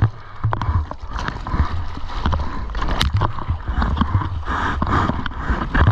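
Water splashing and sloshing along a surfboard's rail as it is paddled through the sea, with irregular thumps and knocks of water against the board, picked up close on a mouth-mounted action camera.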